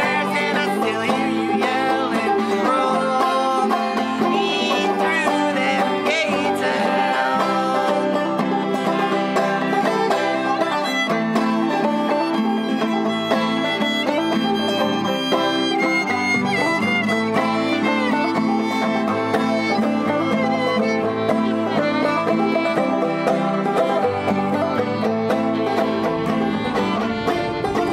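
Live acoustic string-band music: an instrumental passage of an original song, played steadily and without singing.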